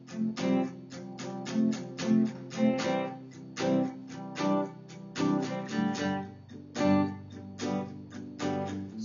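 Solo acoustic guitar playing chords in a steady rhythm, about two strokes a second.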